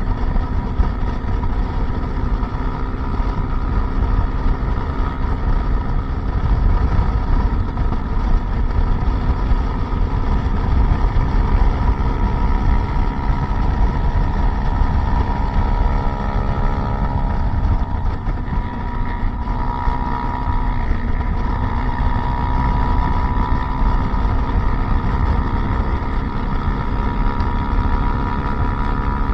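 Motorcycle engine running steadily under way, with wind noise over it; the engine note shifts in pitch about two-thirds of the way through.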